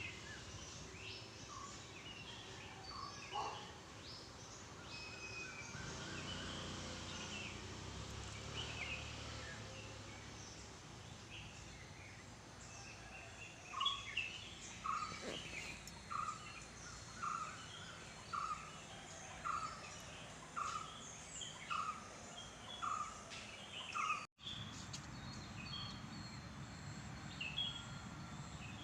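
Several birds chirping and calling over a steady background hiss. In the middle, one bird repeats a short note evenly, about once a second, for some ten seconds. The sound cuts out for an instant near the end.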